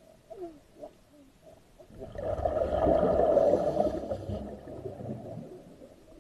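Underwater breathing noise from a scuba diver's regulator: one long exhalation of bubbles rumbling and gurgling, swelling about two seconds in and fading over the next three seconds, after a few faint squeaks at the start.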